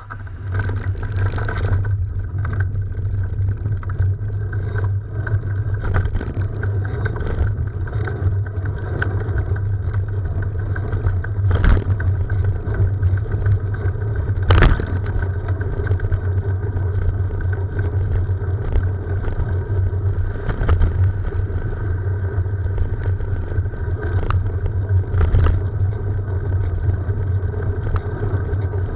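Steady wind and road rumble picked up by a camera mounted on a moving bicycle, with sharp knocks now and then as bumps in the road jolt the mount, the loudest about halfway through.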